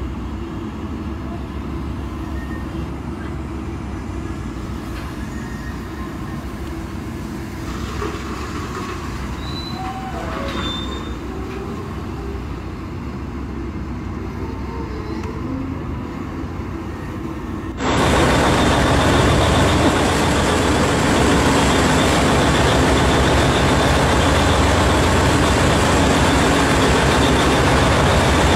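Cat electric rope shovel and haul truck working, a steady low machine rumble with a few brief squeals around ten seconds in. About eighteen seconds in the sound turns suddenly much louder and harsher, a dense steady noise that holds to the end.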